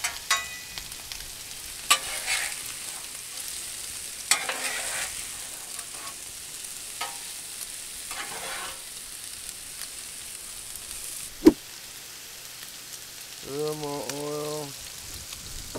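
Onions, mushrooms and bacon sizzling on a Blackstone flat-top griddle, with a metal spatula scraping across the steel plate several times and one sharp clack later on. Near the end a squeeze bottle sputters oil onto the griddle.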